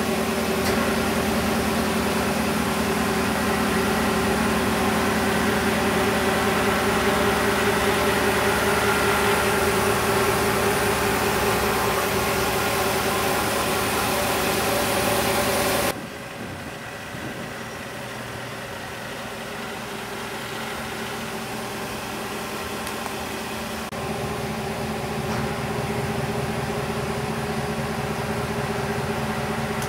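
Ford F-350 Super Duty dually's engine idling steadily. The sound drops abruptly to a quieter level about halfway through and steps back up a few seconds before the end.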